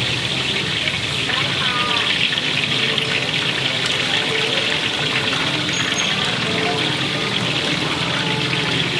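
Bananas deep-frying in hot oil in a market wok: a steady, dense sizzle, with faint voices underneath.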